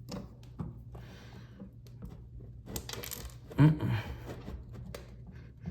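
Small metal faucet parts clinking and tapping while the faucet is taken apart with hand tools, with a louder knock and rattle about three and a half seconds in.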